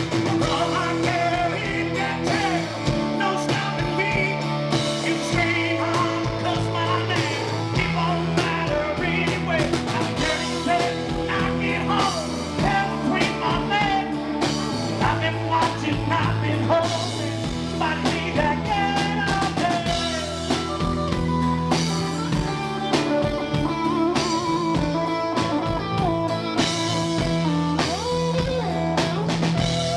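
Live rock band playing an instrumental passage: a lead guitar line with bending notes over bass and drum kit.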